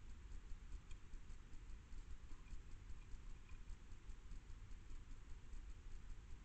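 Faint ticks and taps of a hedgehog nosing and tipping a stainless steel food bowl, over a steady low hum.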